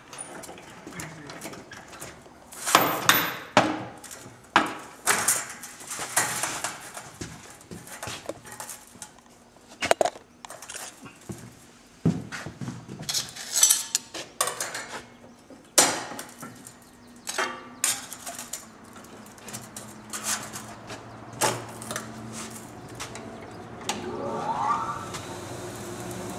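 Sharp metal clanks and knocks as a toothed steel band saw blade is handled and clamped in a joining jig, its steel clamps and levers worked by hand. Near the end a small bench grinder motor spins up with a rising whine and keeps running.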